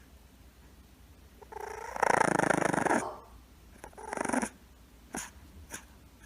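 A pet growling twice: a long, loud, rough call about two seconds in, then a shorter one. Two brief clicks follow near the end.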